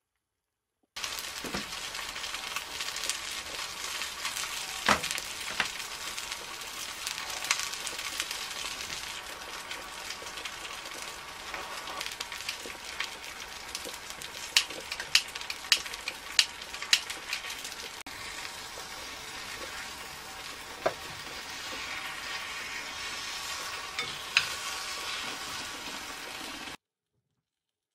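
Cheese and oyster gratin sizzling in a cast-iron Dutch oven over a gas burner: a steady frying hiss with scattered sharp pops and crackles, thickest in a run about halfway through. It starts suddenly about a second in and cuts off near the end.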